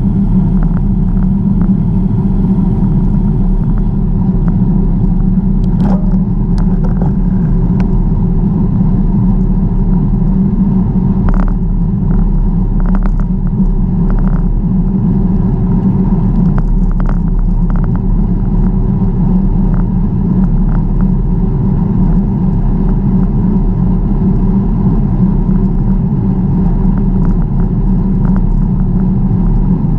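Steady low rumble of wind buffeting the microphone and tyre noise from a bicycle being ridden, with scattered small clicks and rattles.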